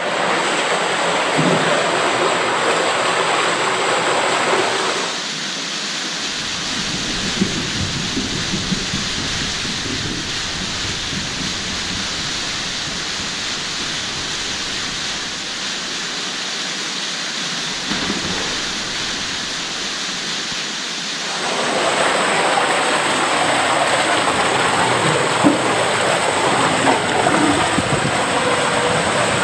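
Water rushing and splashing down a body slide's tube and funnel bowl, a steady noise of running water. It drops quieter about five seconds in and grows louder again after about twenty seconds.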